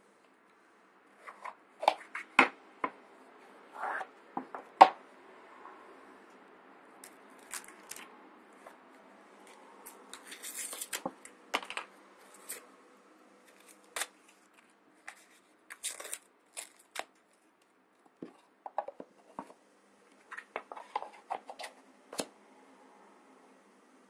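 Metal slide-out cigarette case being handled: irregular sharp clicks and knocks as the metal sleeve and shell slide and are set on the table. A burst of paper-and-foil rustling about ten seconds in, as a cigarette pack is pushed into the sleeve.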